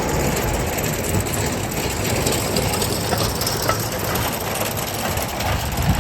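A tractor engine running while an old manure spreader's chain drive and spinners turn, with scattered clanks and knocks over the steady noise; the newly repaired drive chain is holding.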